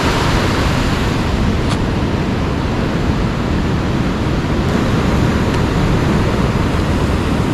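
Steady rush of wind on the microphone over the wash of breaking surf.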